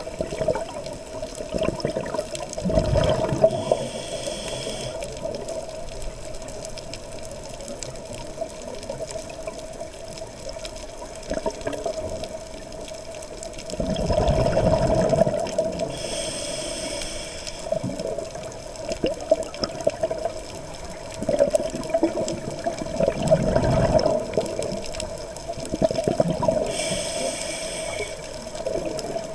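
Water sloshing and gurgling, swelling up louder three times.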